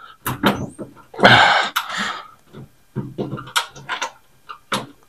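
Scattered light clicks and metal knocks of a bolt being worked into a car grille's mounting holes, with a short breathy hiss about a second in.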